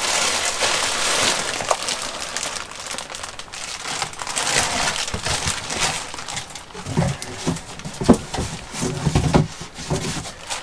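Cardboard packaging and a plastic bag rustling and crinkling as a battery in plastic-wrapped foam is pulled out of its shipping box, with a few dull knocks in the second half.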